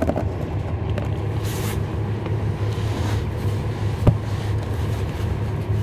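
Cummins ISL9 inline-six diesel engine of a 2012 NABI 416.15 (40-SFW) transit bus running with a steady low drone, heard from inside the bus. A single sharp knock sounds about four seconds in.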